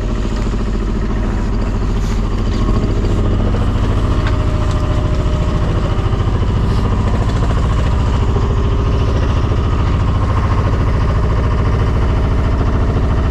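A sailboat's inboard diesel engine running steadily, motoring the boat through a windless calm: a low, even drone with a fast, regular beat.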